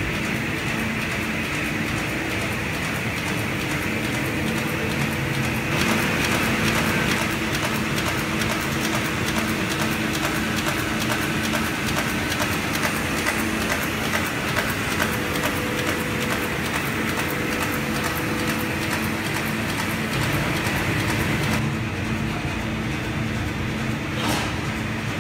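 Sawmill machinery running steadily, a continuous mechanical drone with a faint low hum through it.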